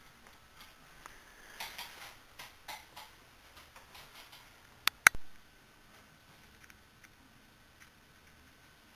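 Faint rustling and light taps, then two sharp clicks close together about five seconds in.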